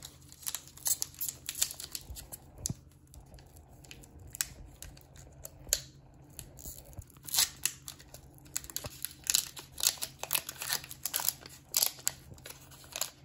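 Foil booster pack of Pokémon trading cards being torn open by hand: irregular crinkling and tearing crackles as the fingers pick along the sealed top, with a busier run of crackles in the second half.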